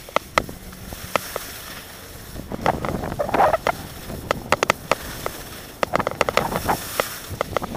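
Skis sliding and scraping over packed snow during a downhill run, in uneven surges, with wind rushing over the microphone and scattered sharp clicks and knocks.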